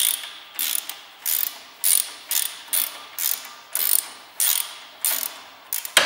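Hand ratchet wrench clicking in short repeated back-swings, about two a second, as a 17 mm brake caliper bracket bolt is undone.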